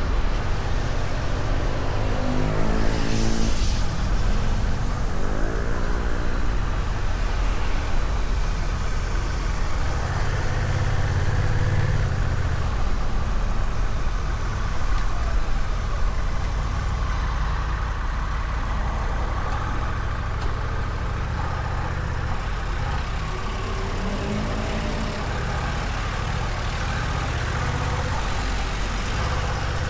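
Honda Rebel 1100 DCT's parallel-twin engine running steadily at about 60 km/h on cruise control through the stock exhaust, with wind and road noise over it. Brief sliding-pitch sounds pass twice early on and once near the end.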